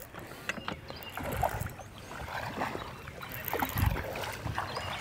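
Water lapping against a fishing boat's hull, with a few small clicks and low knocks scattered through it.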